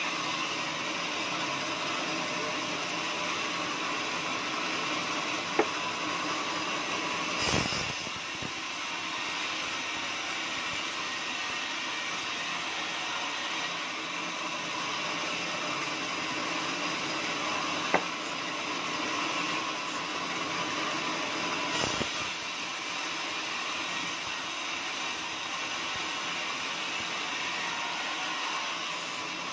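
Band sawmill running steadily as its blade saws through teak, a dense even whirring noise. Two sharp clicks and two heavier knocks break through it at intervals.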